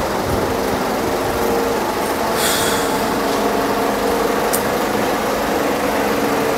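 Steady road-traffic noise with the low hum of a running vehicle engine. There is a short hiss about two and a half seconds in and a brief click later on.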